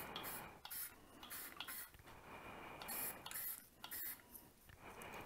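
Aerosol spray-paint can spraying a wheel in short repeated bursts of hiss.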